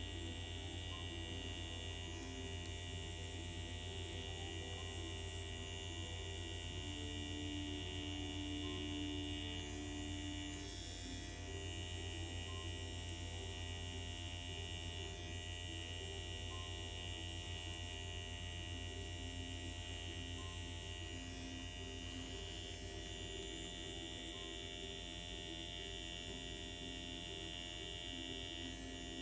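Soft background music over a steady electric hum, which drops slightly in level near the end.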